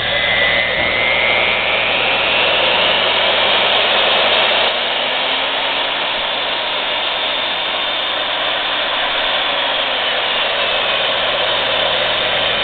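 Milwaukee 4210 magnetic base drill press's electric motor running in forward. Its whine climbs in pitch over the first four seconds as the variable speed is turned up, then runs steadily.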